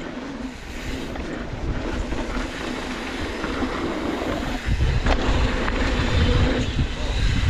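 Mountain bike rolling fast down a rough dirt trail: a steady chattering rattle of tyres, chain and suspension, with wind rumble on the microphone that grows louder about two-thirds of the way through and a sharp knock around then.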